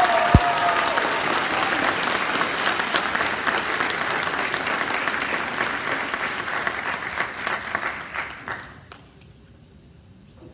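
Audience applauding, a dense clatter of many hands clapping that tapers off and stops near the end.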